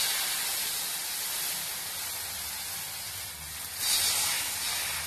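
Thin wheat-and-tomato dosa batter hissing and sizzling as it is poured from a ladle onto a hot dosa griddle, with a louder surge of sizzle about four seconds in.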